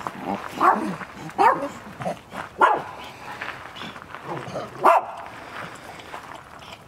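Dogs barking: a handful of short, sharp barks spaced irregularly, the loudest about two and a half seconds in and again near five seconds.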